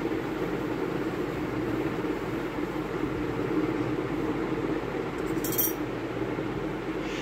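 Metal spoon scooping homemade ice cream from a plastic tub and serving it into ceramic bowls, with one short clink of spoon on bowl a little over five seconds in, over a steady low background hum.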